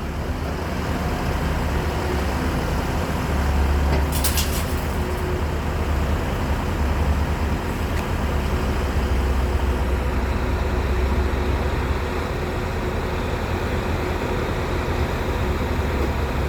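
Heavy diesel engine running steadily with a deep rumble, with a short high rattling hiss about four seconds in.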